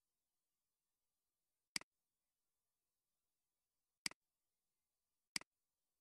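Computer mouse button clicking three times against near silence, each click a quick double tick, spaced unevenly.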